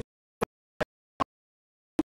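Chopped fragments of a man's speaking voice. Each blip lasts a split second, about every 0.4 seconds, with dead silence between, as if the audio track is cut up or gated.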